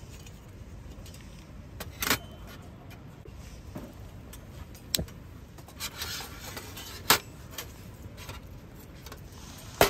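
Metal clinks and clatter of a thin folding steel stove stand being set up over a fuel cup on a stainless steel tray, with a few sharp metallic clicks spaced a couple of seconds apart, the loudest two in the second half.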